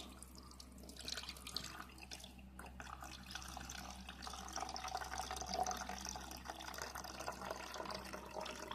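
Water poured into the water tank of a Blu Breeze portable air conditioner, a steady trickle starting about a second in.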